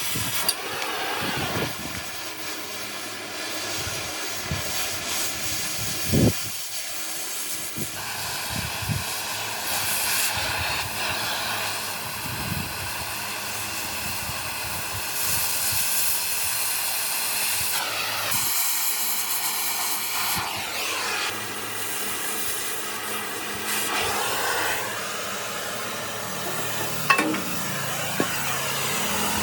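Steady hiss of pressurised air or spray that swells and eases several times, with a few sharp knocks.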